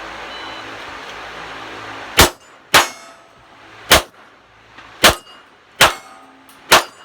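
Glock 17 firing six rounds of 147-grain 9mm in an irregular string, the shots about half a second to a second apart, after a couple of seconds of steady background hiss. Some shots are followed by a short metallic ring.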